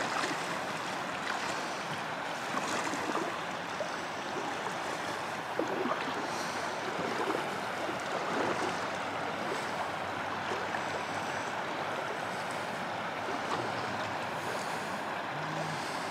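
Steady rush of river current, an even wash of water noise.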